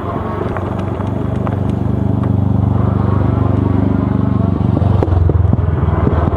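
A motorcycle engine approaching and passing close by, growing louder to a peak about five seconds in.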